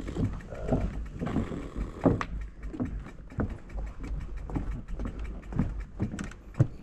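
Fat bike rolling along a wooden boardwalk: irregular knocks and clatter as the tyres run over the planks, some of which shift under the wheels, over a steady low rumble.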